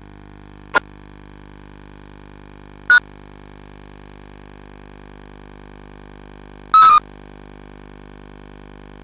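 Public-address system humming steadily through its speakers, broken by three sudden loud crackles from the microphone being handled: one short pop just under a second in, another about three seconds in, and a longer crackle near seven seconds.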